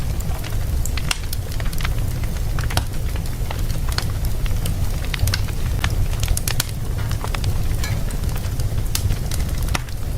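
Wood fire burning in a fireplace: a steady low rumble of flame with frequent sharp, irregular crackles and pops.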